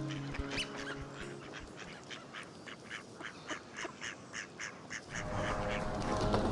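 Cartoon duck quacks in a quick run of short calls, about three or four a second; near the end held steady tones come in.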